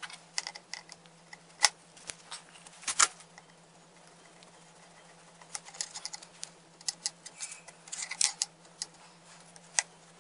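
Scattered clicks and light knocks of a screwdriver and parts handled while a Ferm angle grinder is taken apart, the loudest a sharp knock a couple of seconds in.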